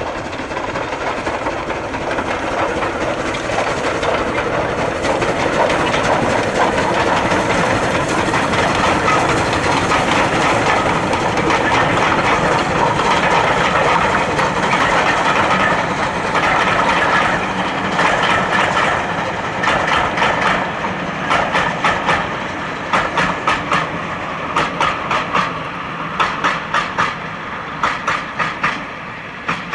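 Steam locomotive hauling a passenger train past, working uphill with a dense, loud exhaust rumble and hiss. After it, the coaches roll by, their wheels clicking in quick pairs and groups over the rail joints as the sound fades.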